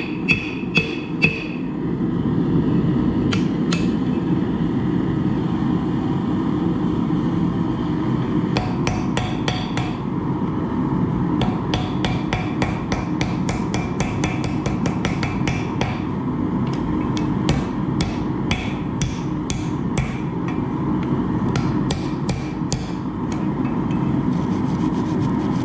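Small hand hammer striking hot, fluxed steel during forge welding, in runs of quick blows several a second with short pauses, to set the weld on a hatchet billet. A steady low rushing noise runs underneath.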